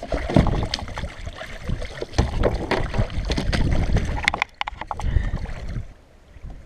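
Water splashing and sloshing beside a kayak as a hooked spurdog is hauled to the surface and grabbed by hand, with scattered knocks and clicks of handling. The splashing dies down about four and a half seconds in.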